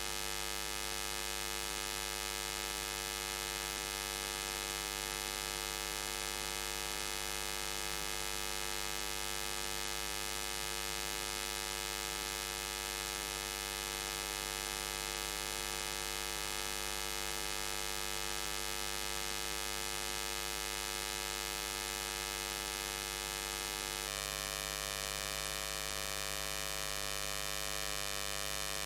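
Steady electrical hum and buzz, many pitches at once over a hiss, whose tone changes slightly about two-thirds of the way through. It is interference from the inverter-powered lighting on the recording.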